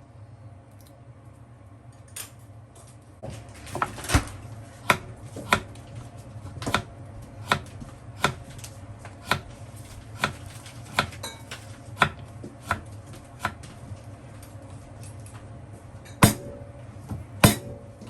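Knife chopping on a cutting board in slow, evenly spaced strokes, about one a second, then a pause and two louder chops near the end.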